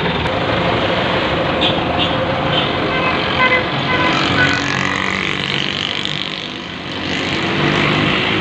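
Belarus ("Rusi") tractor's diesel engine running steadily as the tractor creeps forward, with street traffic and short horn toots a few seconds in.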